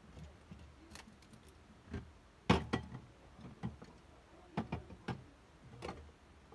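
Scattered light knocks and clicks, about half a dozen in all, irregularly spaced; the loudest comes about two and a half seconds in.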